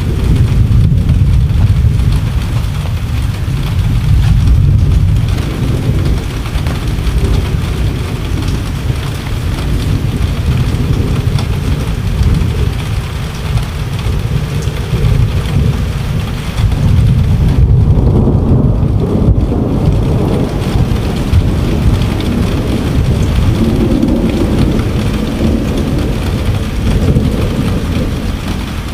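Thunderstorm: steady rain with a deep rumble of thunder that swells near the start and again about 18 seconds in.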